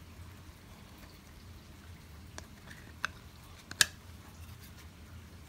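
A few short sharp clicks and taps of hands handling the wet plastic body of a drone, the loudest a little under four seconds in, over faint steady rain.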